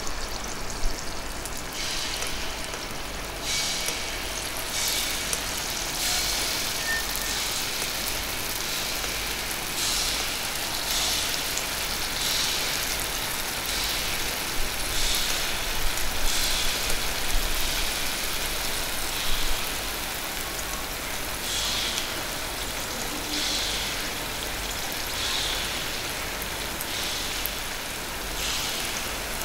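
Takoyaki batter sizzling in hot oil on the Teflon plate of a gas takoyaki machine. A fresh surge of sizzle comes every second or so as each hole is filled.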